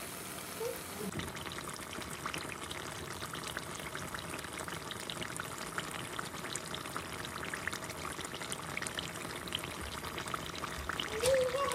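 Dough balls deep-frying in a pot of hot oil: a steady bubbling sizzle with many small crackles. A brief wavering hum rises over it near the end.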